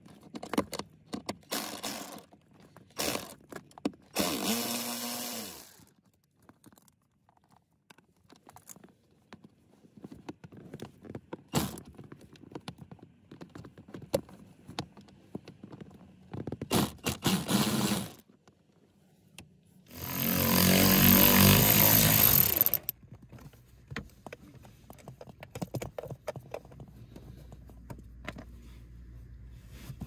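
Cordless drill-driver running in three short bursts as it backs out the blower motor's three 8 mm screws. The last burst, near the end, is the loudest and longest, at about three seconds. Light clicks and plastic handling noises come between the bursts.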